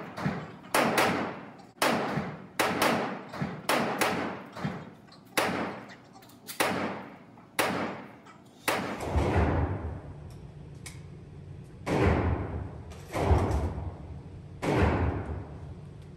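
Gunshots ringing out in an indoor shooting range, each sharp crack trailing off in the hall's echo. They come about once a second for the first eight seconds; after that a low steady rumble sets in and the shots come further apart.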